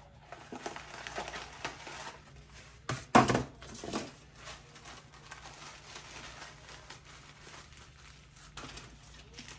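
Paper packaging rustling and crinkling as a bag strap is unwrapped from its box, with a sharp, louder crackle about three seconds in.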